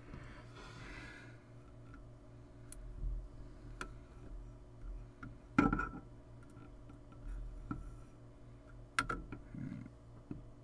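Tweezers and fingers handling small parts on a circuit board: scattered light clicks and taps, the loudest a little over halfway through, over a steady low hum.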